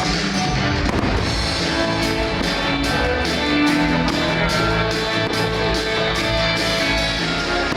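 Upbeat Christmas fireworks-show soundtrack music with a steady beat.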